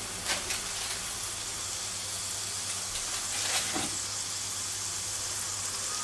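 Raw burger patty frying in hot oil in a pan: a steady high sizzle with a couple of louder crackles.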